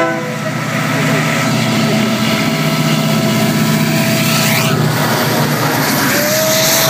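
Diesel freight locomotives passing directly beneath, their engines running with a loud, steady low drone and a rush of noise as a unit goes under about two-thirds of the way through. A long held high note comes in near the end.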